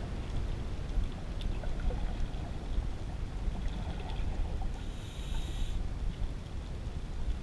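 Underwater ambience as heard by a camera below the surface: a steady low rumble with faint scattered clicks. About five seconds in comes a hiss lasting about a second, typical of a scuba diver's regulator breath.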